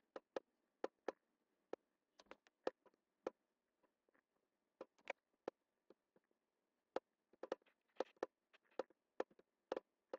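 Computer mouse clicking: sharp, irregular clicks, some single and some in quick runs of three or four.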